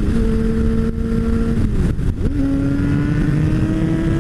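Sport bike engine pulling at steady revs with wind rushing past. About two seconds in, the revs drop through an upshift, then slowly climb again in the higher gear.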